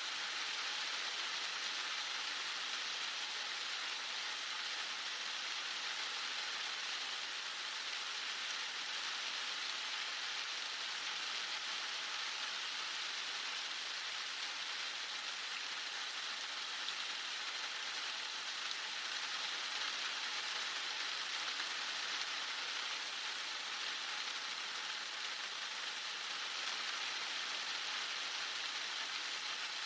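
Very hard rain falling steadily, an even, unbroken hiss.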